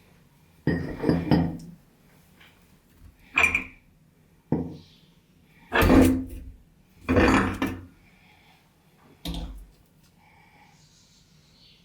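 Crunchy snacks being crushed in a meat grinder: about six separate loud crunches and clunks at irregular intervals, with short pauses between them.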